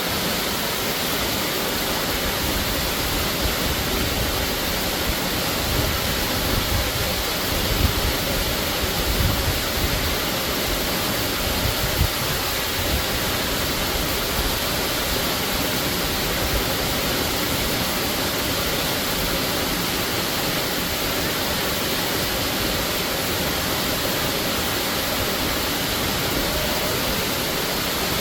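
Waterfall rushing: a steady, even wash of falling water, with a few low rumbles welling up in the first half.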